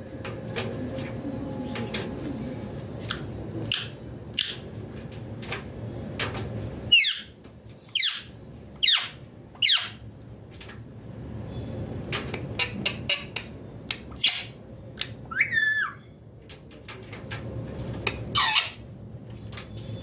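Parrot giving short, sharp screeching calls that sweep downward in pitch: a run of four loud ones near the middle, a wavering call later, and another near the end, with smaller chirps in between over a low steady hum.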